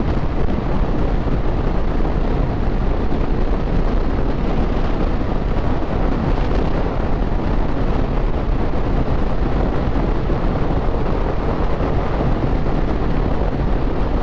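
Heavy, steady wind noise on the microphone over a 2022 Triumph Speed Twin 1200 motorcycle cruising at a steady throttle, its 1200 cc parallel-twin engine running underneath.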